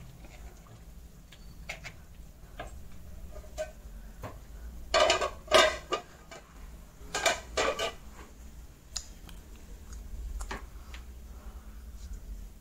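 Steel cookware clanking: a steel lid handled against a steel kadhai, with four sharp metallic clanks that ring briefly, in two pairs about halfway through, among soft clicks of kitchen handling.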